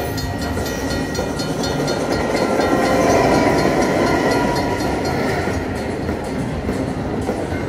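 A slot machine's recorded train sound effect: a train running on rails with a steady clattering rhythm, from a Luxury Line Cash Express game, over steady electronic tones from the machine.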